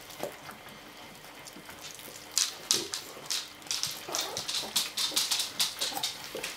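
A dog lapping puppy milk from a shallow dish: quick, irregular wet licking clicks that start about two seconds in and run on several per second, with a couple of faint whimpers.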